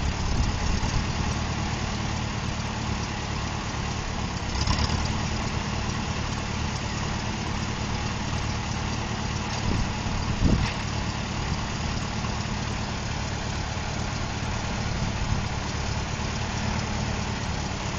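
Cockshutt 30 tractor's four-cylinder gasoline engine running steadily at low speed, with a couple of brief louder moments.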